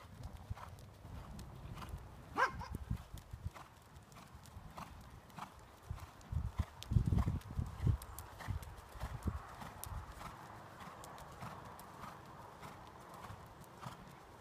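A horse's hooves beating at a canter on a soft arena surface, a run of dull low thuds that are loudest about seven to eight seconds in. A short, higher-pitched sound comes through about two and a half seconds in.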